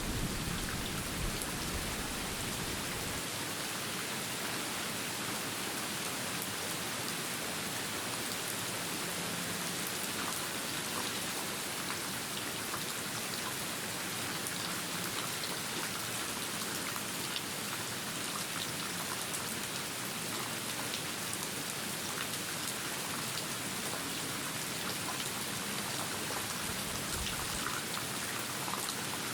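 Steady, even rain falling, with fine patter of individual drops throughout. A low rumble of thunder dies away in the first few seconds.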